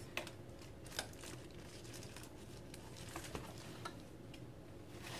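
Baby swing parts being handled while unpacked: a few light clicks and knocks, the sharpest about a second in, over faint room tone.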